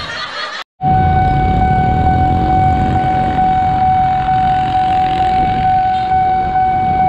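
Railway level-crossing warning alarm sounding one steady high electronic tone, starting just under a second in after a brief gap. Beneath it is a low rumble of traffic from motorcycles waiting at the lowered barrier.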